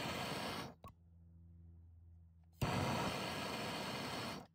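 MAP gas torch flame hissing in two bursts as it heats a copper line-set joint for soft soldering: one runs about a second and cuts off suddenly, then the flame comes on again for nearly two seconds before stopping.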